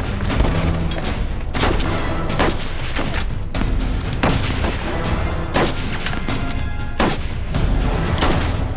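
Background music with repeated gunshots and booms sounding over it, each about a second or less apart.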